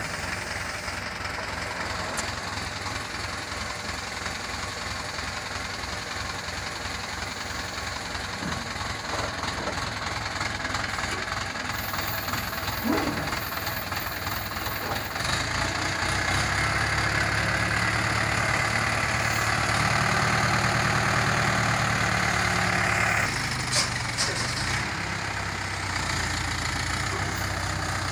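Diesel tractor engine driving a tractor-mounted hydraulic crane, running steadily, then revving up under load about halfway through and easing back a few seconds before the end.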